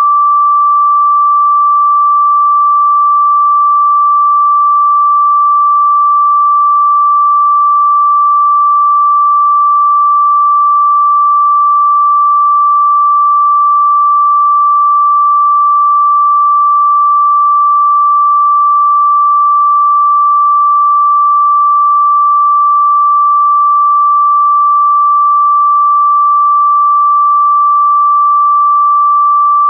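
A single steady sine-wave tone a little above 1 kHz, held at one pitch and one level throughout: a pure meditation frequency tone used for chakra activation.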